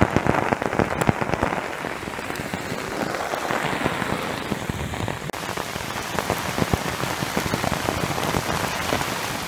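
Torrential rain falling steadily on a military poncho shelter, with a dense stream of sharp drop impacts close to the microphone.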